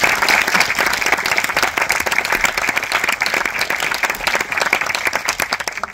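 Audience applauding: many hands clapping at once, loud and steady, then stopping abruptly near the end.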